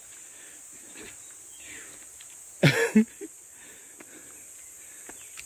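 Insects droning steadily at a high pitch in the forest, with faint rustling. About two and a half seconds in comes a brief, loud double knock or bump.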